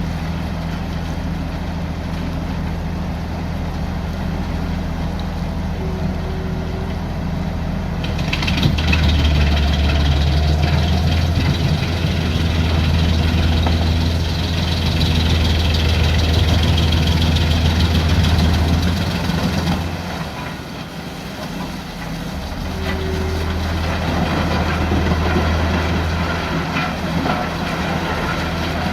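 Large wood chipper's engine running steadily. From about eight seconds in, the sound grows louder and harsher for about ten seconds as logs are fed through and chipped, eases briefly, then grows louder again for a few seconds.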